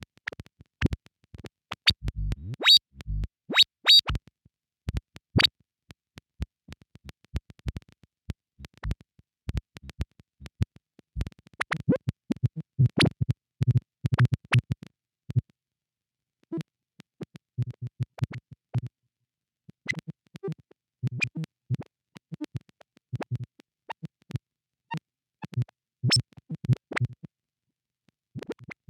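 Lorre-Mill Double Knot V2 synthesizer playing sparse, irregular clicks and short blips, with patches of short low buzzy notes and brief silent gaps between.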